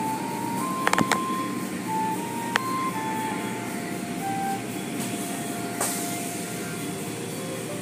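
Automatic car-wash machinery running: steady water spray and soft-cloth curtains washing over a car, with a few sharp knocks, a close pair about a second in and single ones near two and a half and six seconds.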